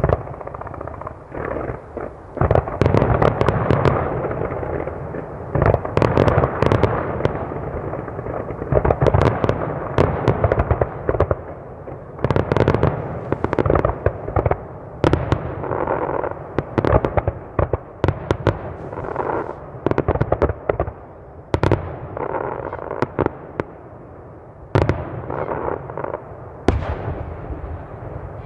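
Aerial firework shells bursting in rapid volleys: many sharp booms overlapping with their rolling echoes, thinning out to a few separate bangs near the end.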